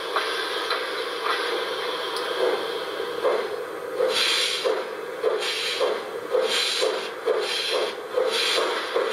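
The LokSound sound decoder in an LGB model of HSB steam locomotive 99 7237-3 plays recorded steam-locomotive sounds through the model's speaker. A steady hiss gives way, about three to four seconds in, to regular exhaust chuffs of two to three a second, each with a burst of hiss, as the locomotive works.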